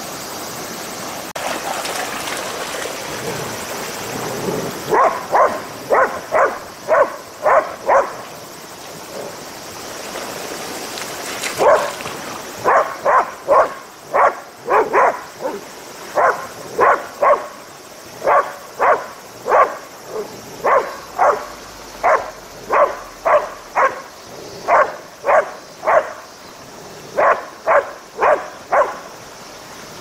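Border collie barking excitedly in repeated runs of short, sharp barks, about two a second, starting about five seconds in. Before the barking, the dog splashes through shallow, rushing river water.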